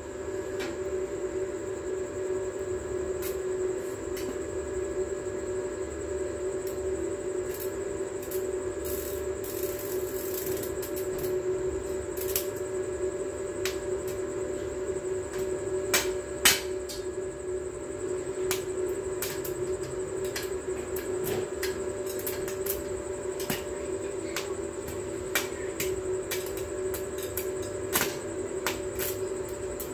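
Electric arc welding on a steel rebar frame: a steady buzzing hum under an irregular crackle, with sharp pops scattered through and one louder crack about sixteen seconds in.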